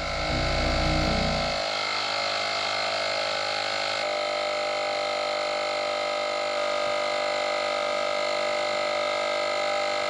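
Portable electric tyre inflator (Portronics) running steadily while pumping up a motorcycle tyre, its small compressor motor giving a constant buzzing hum. A deeper low rumble drops away about a second and a half in.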